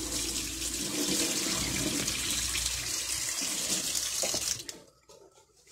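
Kitchen tap running into a pot of soaked lentils in a stainless steel sink, filling it with fresh water for boiling; the flow stops about four and a half seconds in.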